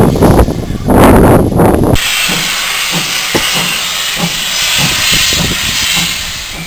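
Steam locomotive letting off steam: a loud steady hiss with faint soft beats about twice a second underneath. It is preceded by about two seconds of heavy low rumbling.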